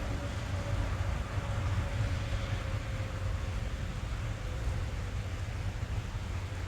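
Steady rain drumming on a car's roof and glass, heard from inside the cabin, with a deep steady rumble underneath.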